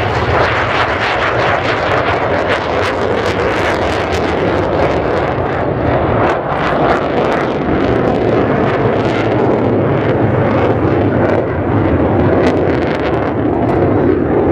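Twin General Electric J79 turbojets of a McDonnell Douglas F-4EJ Phantom II, a loud steady jet roar with crackling, as the fighter climbs and banks overhead.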